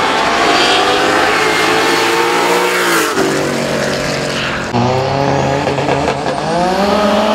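Drag racing cars' engines running at full throttle down a drag strip. The sound changes abruptly about three and five seconds in, then engines rev up, climbing in pitch, near the end.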